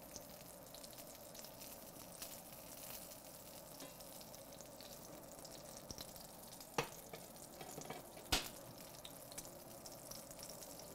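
Duck breast frying skin side down in a cast iron skillet over medium-low heat, a faint steady sizzle and crackle as the fat renders. Two sharp metal clinks about two-thirds of the way through, a ladle knocking against the risotto pot.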